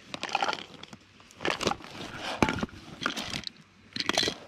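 Short rustling and clicking handling noises, about five brief bursts a second or so apart, as containers of pop-up boilies are rummaged through.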